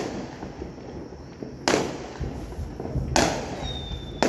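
Aerial fireworks bursting: three sharp bangs about a second and a half apart, each trailing off into an echoing rumble. A faint, thin high whistle sounds near the end.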